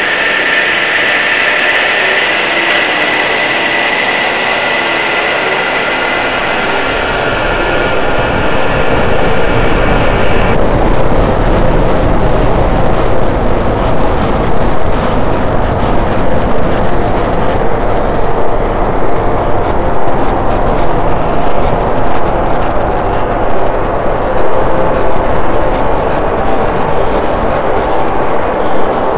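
Loud, dense rumbling noise with a shrill, screeching layer of high tones over it; about ten seconds in the screech drops away, leaving a deeper, heavier rumble.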